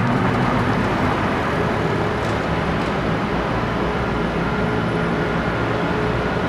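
Steady road traffic noise, an even rumble with no single clear engine note; a car engine's tone fades out right at the start.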